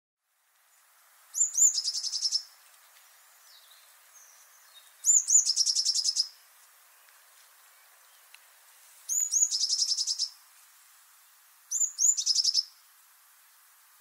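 Blue tit singing four separate phrases a few seconds apart, each two high, thin notes followed by a fast trill.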